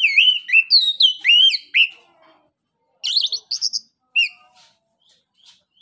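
Chestnut-capped thrush (anis kembang) singing: a loud run of swooping whistled notes for about two seconds, then after a short pause a quick, higher-pitched phrase and one last note.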